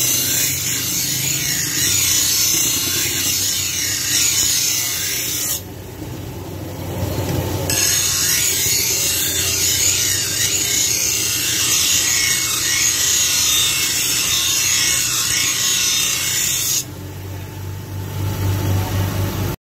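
Bench grinder's abrasive wheel grinding a steel dagger blade made from an old file, a loud rough hiss of metal on the stone. The blade is lifted off twice, about six seconds in for two seconds and again near the end, leaving only the grinder motor's steady hum, before the sound cuts off suddenly.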